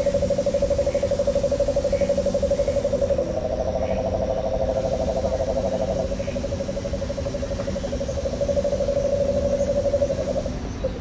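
Jungle ambience played over loudspeakers: an animal trill, a steady, rapidly pulsing call, with a low rumble beneath it. The call steps slightly higher for a couple of seconds in the first half.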